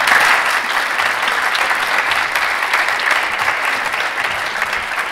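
Audience applauding: dense, steady clapping from a crowd, loud at first and easing slightly over the seconds.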